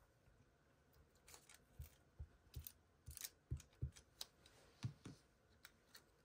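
Paper and stationery being handled on a desk: quiet, irregular small clicks and soft taps, about a dozen spread over a few seconds.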